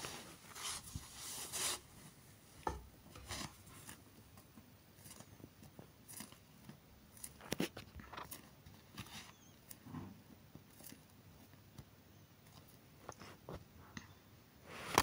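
Irregular light clicks, taps and rustles of a hand gripping and moving a plastic drink bottle on carpet.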